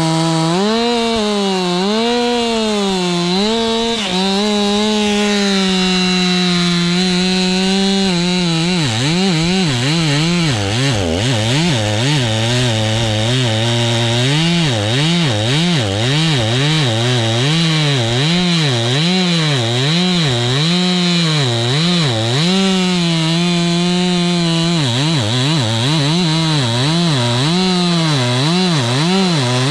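Two-stroke chainsaw running and cutting wood. Its engine speed holds steady for a few seconds at a time, then rises and falls over and over, about once a second.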